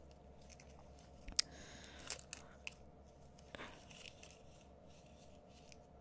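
Faint handling noise of beading supplies being moved about: a few light clicks and a brief rustle, with a plastic wire spool being lifted off the bead mat.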